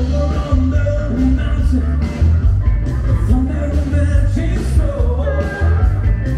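Background music: a rock-style song with singing over a heavy, steady bass.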